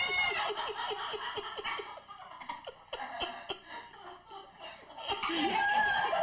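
Several people laughing in quick repeated bursts. The laughter dips about two seconds in and swells again about five seconds in.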